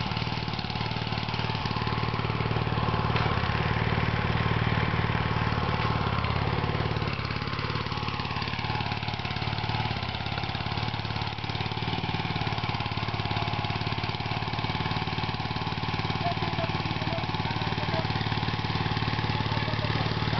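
Small walk-behind hand tractor cultivator's engine running steadily as it tills the soil.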